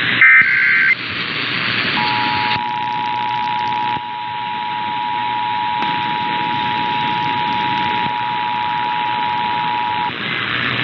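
Emergency Alert System broadcast: the last short burst of the digital SAME header data, then after a second's gap the two-tone attention signal (853 and 960 Hz) held steady for about eight seconds before it cuts off, all over a steady hiss of off-air radio reception.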